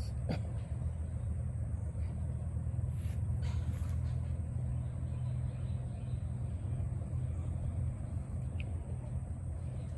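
A steady low mechanical rumble, like a running motor or engine, with no change in pitch.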